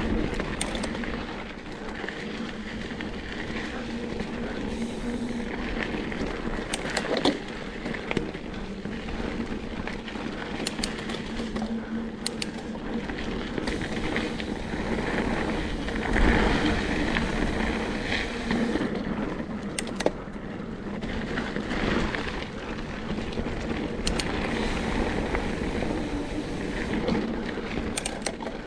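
Mountain bike rolling along a dirt singletrack trail: steady tyre and trail noise with scattered sharp knocks and rattles from the bike, and a louder rough patch about halfway through.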